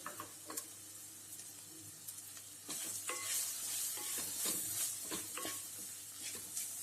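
Small onions and ground spices sizzling in hot coconut oil in a pan while a spatula stirs and scrapes them, with repeated knocks against the pan. The sizzle grows louder about two and a half seconds in, once the stirring starts.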